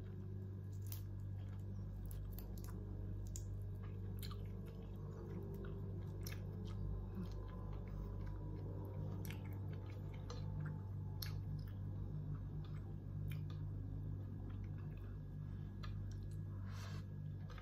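A person chewing a mouthful of shrimp and rice, with scattered small clicks, over a steady low hum.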